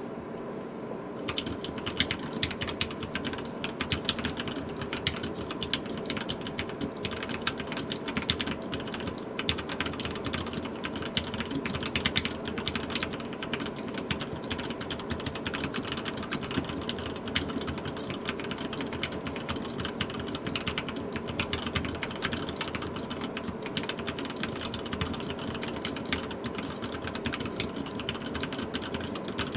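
Fast, continuous typing on a mechanical keyboard with lubed 78g Gateron Black linear switches in an aluminium plate, a dense run of keystroke clacks starting about a second in.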